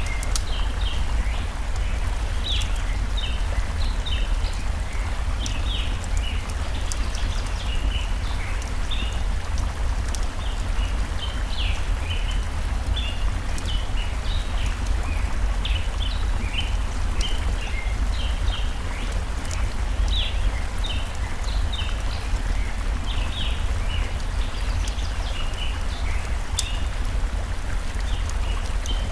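Steady rushing of a forest stream, with many short bird chirps throughout and occasional sharp crackles from a burning wood fire.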